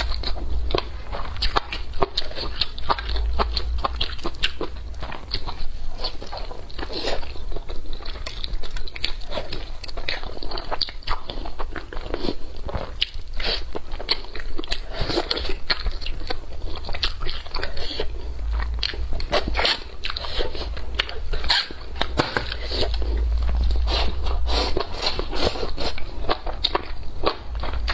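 Close-miked crunchy biting and chewing of food: a dense run of irregular crisp crunches.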